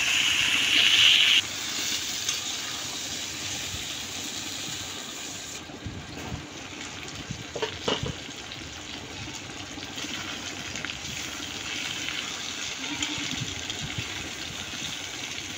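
Marinated chicken and onions sizzling in hot oil in a karahi as they are stirred. The sizzle is louder for about the first second and a half, then drops suddenly to a steadier, quieter level, with a few knocks of the spatula against the pan about halfway through.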